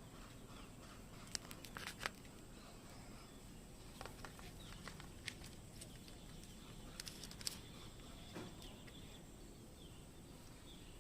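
Faint scattered sharp clicks and taps over a low steady background hiss, a few in quick succession around two seconds in and again around seven seconds in.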